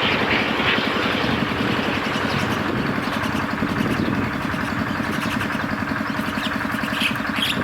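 An engine idling steadily with an even pulsing beat, while the hiss of a passing aircraft fades out in the first second.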